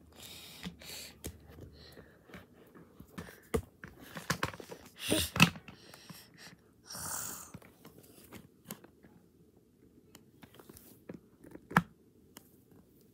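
Hard plastic animal figurines being handled and knocked against each other: scattered clicks and taps, the sharpest about halfway through, with a few short rustling bursts.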